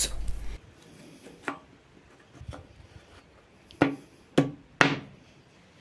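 A new bandsaw blade being flicked or plucked by hand, giving a few sharp taps that each ring out briefly. Two weaker ones come first, then three stronger ones in quick succession near the end.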